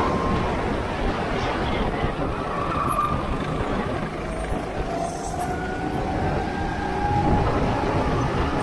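Go-kart engines running under a steady rush of noise, their pitch rising and falling.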